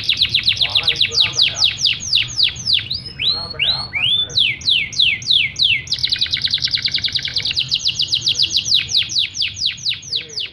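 Domestic canary singing a long, unbroken song of rapidly repeated falling notes, several a second, switching phrase a few times and quickening in the second half; it stops suddenly at the end.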